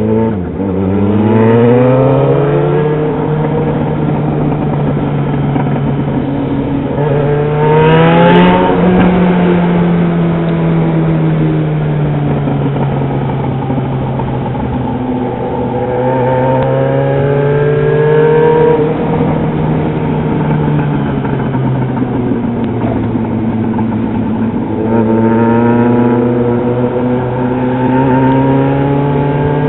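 Yamaha XJ6's 600 cc inline-four engine running loud on the move. Its pitch climbs over the first eight seconds or so, eases off slowly and holds steady, then climbs again near the end.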